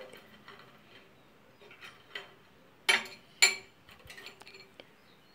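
Ceramic tableware clinking and tapping as crackers and a spoon are handled on a plate and bowl. Two sharp, ringing clinks come close together about three seconds in, with lighter taps before and after.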